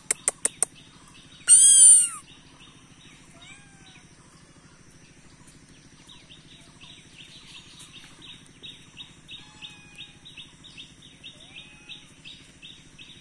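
Birds chirping: a loud short call of arching notes about one and a half seconds in, then a long run of faint rapid chirps and a few short whistled glides. A few sharp clicks come right at the start, and a steady low hum runs underneath.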